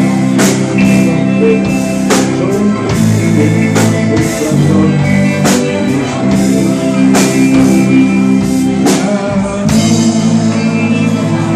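Pop-rock band playing live: drum kit, electric guitar, electric bass, saxophone and keyboard, with a male lead vocal.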